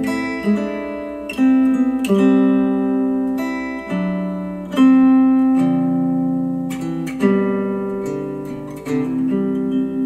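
Acoustic guitar music, chords picked and strummed every second or two and left to ring out, played back through Monitor Audio Bronze 100 bookshelf speakers driven by a Cambridge Audio CXA81 integrated amplifier.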